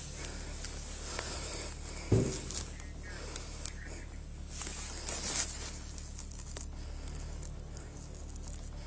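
Body-worn camera handling noise: scattered rustles and small clicks of clothing and hands brushing the camera, with one dull thump about two seconds in, over a steady low hum.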